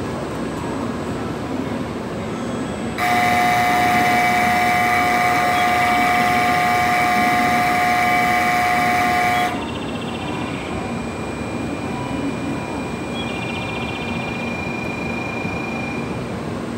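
Shinkansen platform departure bell: a loud, steady electronic sound of several held pitches that starts about three seconds in and cuts off abruptly some six seconds later. It plays over the steady hum of the station and the stopped N700S train. A fainter steady high tone sounds for several seconds afterwards.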